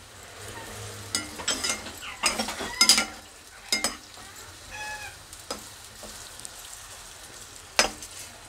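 Steel spatula stirring soya chunks frying in hot oil in a non-stick kadhai: a steady sizzle under irregular scrapes and knocks of the spatula against the pan. The knocks are loudest around three seconds in and again near the end.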